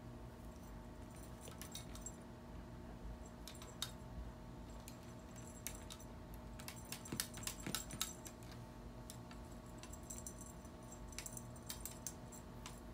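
Light metallic jingling and clicking in short bursts as a kitten bats and tussles with feather wand cat toys, busiest about seven to eight seconds in. A faint steady hum sits underneath.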